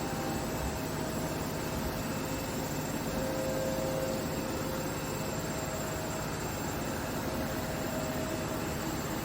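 HONITURE G20 PRO robot vacuum running: a steady rush of suction air with a faint motor whine held at an even pitch.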